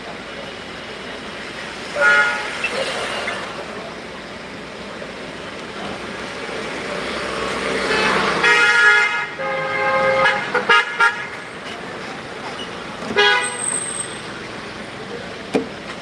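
Street traffic with vehicle horns honking in short blasts: one about two seconds in, a cluster of honks past the middle, and another a little later. The road noise swells past the middle.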